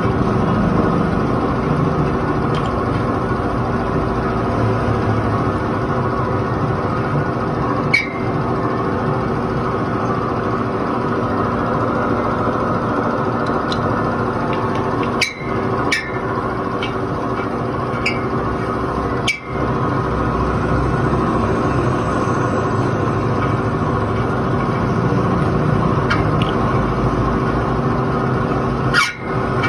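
A steady, loud machine drone with several short, sharp clicks and a few brief dropouts.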